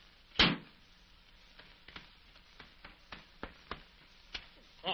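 A cigar lighter being worked: one sharp knock about half a second in, then a run of light, irregular clicks. Behind it runs the steady hiss of an old film soundtrack.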